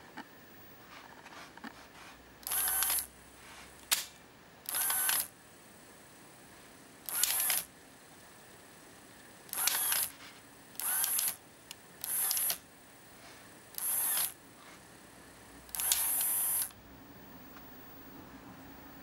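Aurex Toshiba PC-X6AD cassette deck's tape transport: its motor-driven cam and gear mechanism whirs in eight short bursts of about half a second to a second each, the sound of the mechanism shifting between modes. A few small clicks fall between the bursts.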